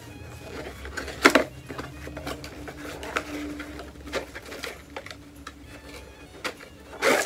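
Small cardboard box of Christmas lights being handled and opened by hand: scattered taps, scrapes and clicks of the cardboard, with a sharper knock about a second in and another near the end.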